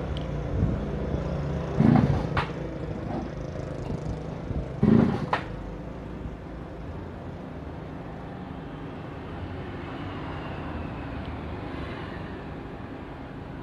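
A small engine running steadily, with two sharp knocks about two and five seconds in; the engine sound eases slightly after the second knock.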